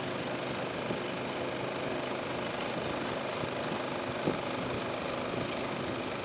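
A motorized canoe's small engine running at a steady speed, with water rushing past the hull. A light knock about four seconds in.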